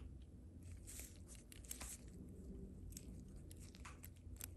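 Faint, scattered small clicks and rustles from a metal hinged cuff bracelet being handled and turned in purple gloved hands.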